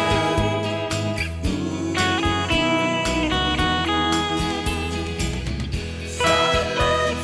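Mosrite electric guitar playing a sustained, gliding instrumental melody over a backing of bass and drums.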